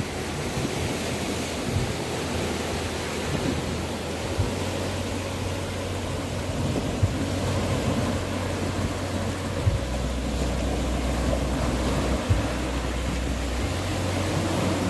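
Sea waves breaking and washing over a pebbly, rocky shore in a steady rush, with a steady low rumble underneath.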